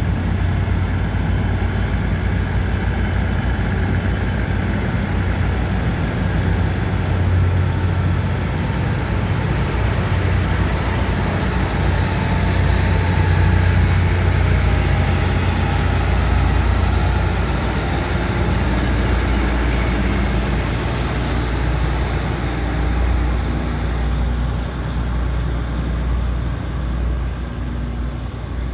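Thai NKF-type diesel multiple unit departing: its diesel engines running loud and steady as the train rolls past, the sound easing off slightly near the end as it draws away.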